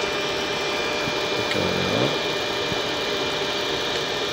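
Starway Servobeam 2R moving-head light running: a steady fan whir with a thin, steady high whine over it.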